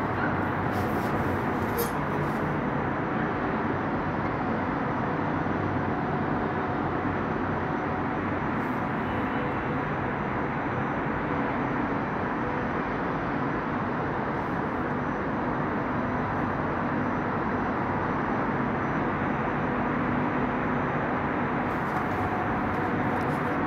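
Steady, even roar of sandstorm wind and distant city traffic, with a faint steady hum underneath.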